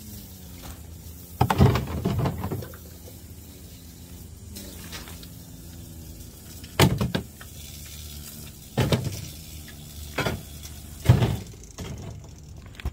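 Knocks and clatter from dismantling a plastic Power Wheels ride-on toy car: a short burst of clunks, then four or five single knocks a second or two apart.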